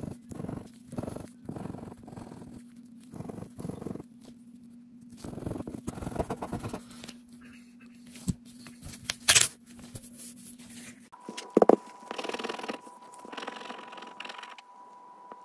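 Plastic scratcher scraping the coating off a scratch-off lottery ticket in short, repeated strokes on a wooden table. Two louder knocks come past the middle as the tickets are handled.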